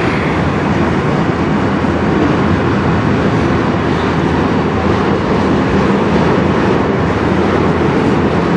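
Freight train's autorack cars rolling past on the rails: a loud, steady noise of steel wheels on track.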